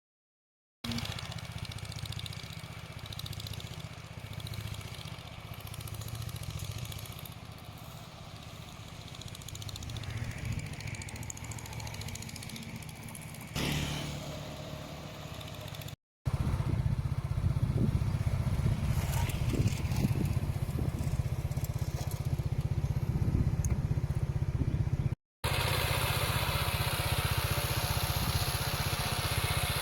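Engines running with a steady low rumble, cut abruptly twice; louder and fuller after the first cut.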